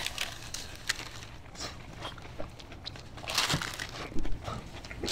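Paper sandwich wrappers crinkling now and then as people eat and chew, the loudest crinkle about three and a half seconds in.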